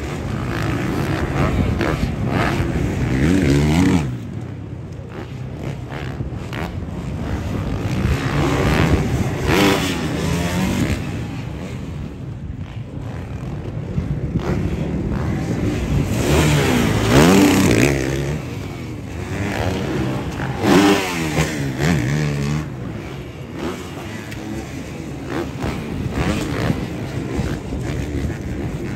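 Dirt bikes riding a supercross track, their engines revving up and down with the throttle, the pitch rising and falling again and again. At times two bikes can be heard together. The sound drops away sharply about four seconds in.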